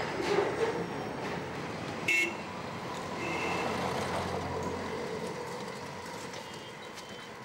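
Street traffic noise with a short vehicle horn toot about two seconds in and a fainter toot about a second later.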